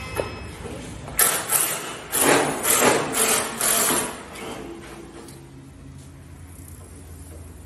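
A series of about eight short, sharp metal tool strokes, roughly three a second, as hand tools work at the bottom of a steel security door's frame during installation. The strokes stop about four seconds in, leaving a low steady hum.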